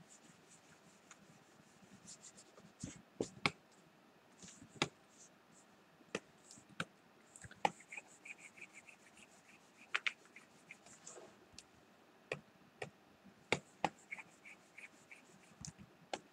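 Irregular sharp clicks and light taps from a stylus, keys and mouse being worked at a computer during digital painting, with two short runs of quick ticks about eight and fourteen seconds in.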